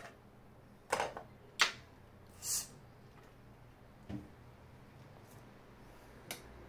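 Tabletop handling noises as a clear plastic palette disc and a palette knife are picked up and set down: two sharp knocks about a second in, a short scraping swish, then a duller knock and a light click.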